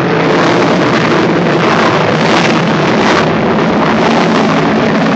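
Loud, steady jet noise of an F-16 fighter's single turbofan engine during a flypast.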